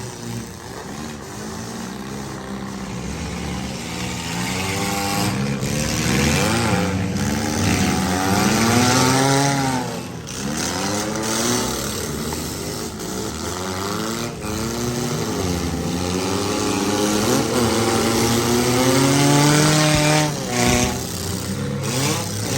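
Several compact and midsize demolition derby cars' engines revving up and down at once, their pitches rising and falling over one another.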